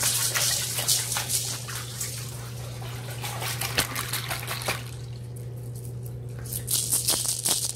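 Water dripping and trickling with small splashes. It thins out about five seconds in and picks up again near the end, over a steady low hum.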